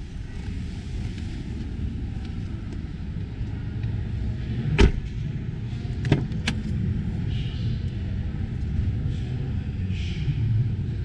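Steady low din of a crowded exhibition hall. A few sharp knocks and clicks from the Stelvio's doors being handled break through it: one loud knock about five seconds in, then two quick clicks a second or so later as the rear door is opened.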